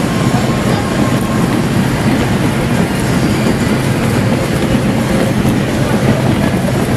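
Daffodil bulb-handling conveyor running under a suction hood that draws off loose skins and dust: a steady, dense machine rumble with the rattle of bulbs tumbling along the belt.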